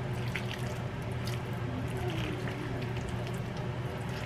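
Thick, wet pot pie filling being stirred with a silicone spatula in a stainless steel bowl: soft squelching with a few light scrapes and taps against the bowl, over a steady low hum.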